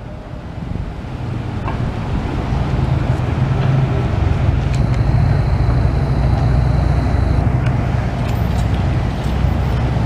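Traffic noise: a motor vehicle's low engine rumble grows louder over the first few seconds and then holds steady, with a faint high whine for a couple of seconds in the middle.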